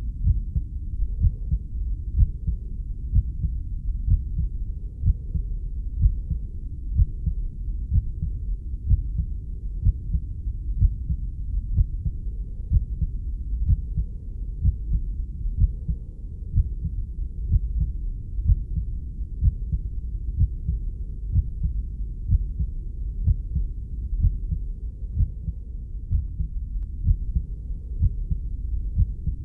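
Heartbeat sound: a steady rhythm of muffled low thumps over a continuous low rumble.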